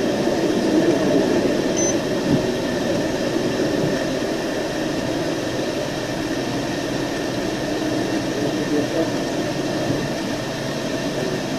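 Steady mechanical drone, even throughout, with faint muffled voices underneath.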